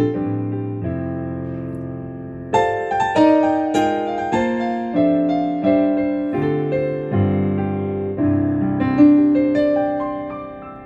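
Yamaha PSR-A5000 keyboard playing its Studio Grand piano voice: slow piano chords and notes struck one after another, each left ringing and decaying, dying away near the end.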